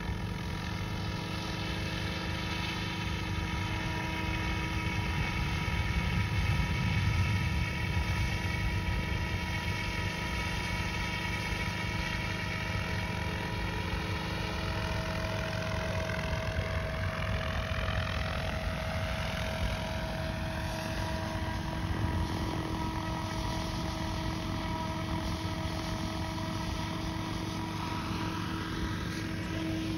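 Radio-controlled model helicopter flying a hovering practice routine, its rotor and drive running steadily with a whine whose pitch slowly dips through the middle and rises again near the end as it comes down low.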